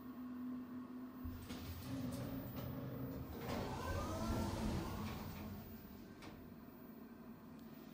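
ThyssenKrupp hydraulic elevator cab coming to a stop and its sliding doors moving, heard from inside the cab. A steady hum cuts out about a second and a half in, and a low rumble with clicks and a whirring slide follows, loudest about halfway through.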